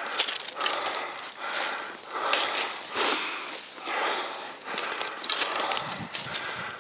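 A hiker moving uphill through forest undergrowth: footsteps on the needle-and-leaf-strewn slope, branches brushing past, and breathing in repeated swells of about a second each, close to the microphone.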